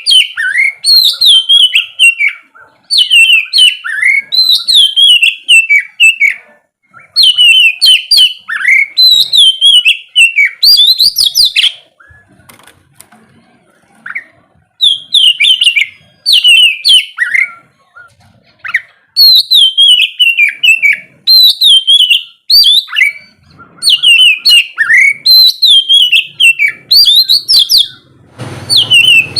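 Oriental magpie-robin (kacer) in full song: loud, varied whistled phrases with quick high chattering notes, delivered in bursts a second or two long with short pauses between them. There is a longer pause of about two seconds near the middle.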